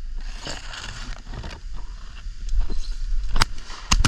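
Wind buffeting the microphone as a storm moves in, a steady low rumble under a hiss, with a few sharp cracks near the end.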